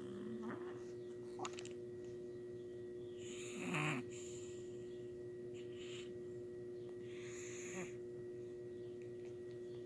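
Snoring: two long snores about four seconds apart, the first louder with a pitch that falls near its end, over a faint steady hum.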